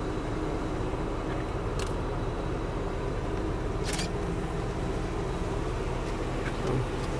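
Engine of a Chevy Impala running steadily, heard from inside the cabin as a low even rumble, with two short clicks about two and four seconds in.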